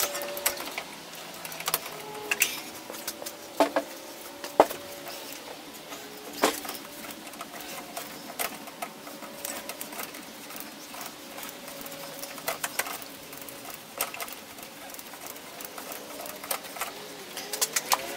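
Irregular metallic clicks and clinks of hand tools working on a car engine, with a denser run of clicking near the end and one sharp, louder click about four and a half seconds in.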